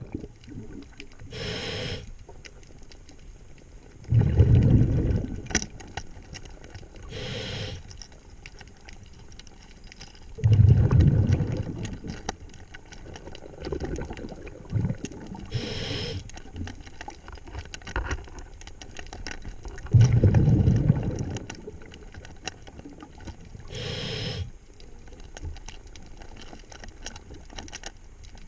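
A diver breathing through a scuba regulator underwater: a short hissing inhale, then a loud low burble of exhaled bubbles a few seconds later, the cycle repeating about every eight seconds, three times over.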